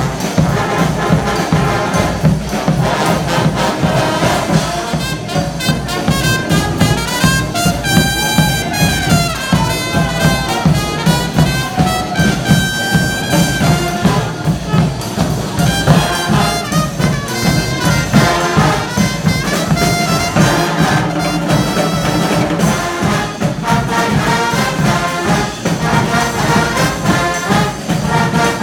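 Street brass band playing, trumpets and trombones over a steady beat.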